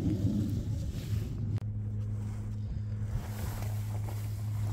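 Steady low hum of heavy quarry machinery running, with one light knock about a second and a half in.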